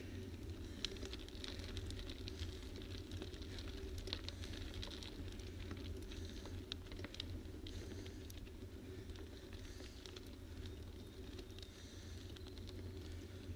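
Tyres rolling over rough, cracked asphalt: a steady low rumble with many small, irregular ticks and crackles.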